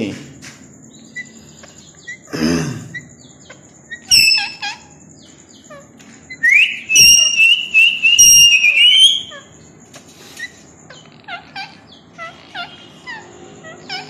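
Indian ringneck parakeets calling: a sharp screech about four seconds in, then a loud long call that rises and holds for about two and a half seconds, followed by many short, quieter chirps.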